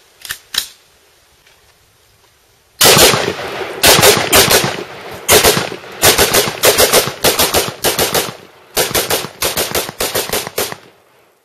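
AR-15 rifle firing rapid strings of shots, several groups with short pauses between them, starting about three seconds in and stopping shortly before the end. Two faint clicks come first.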